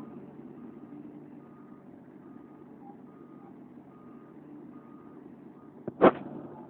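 Travel/reversing alarm of a Liebherr R 984 excavator beeping a little faster than once a second over the steady drone of the machine, with one sharp loud knock about six seconds in.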